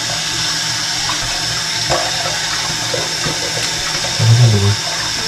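Kitchen faucet running steadily into a stainless steel sink as hands rinse under the stream. A brief low hum comes near the end.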